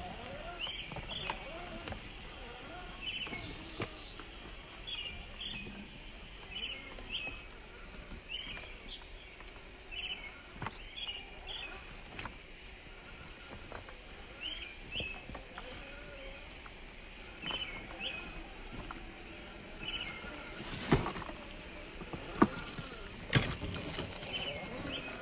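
Scale RC rock crawler (Axial SCX10 III Jeep CJ7) crawling over loose rocks, its tyres and chassis clicking and knocking against stone, with a few sharp loud knocks about three-quarters of the way through. Short high chirping calls repeat throughout.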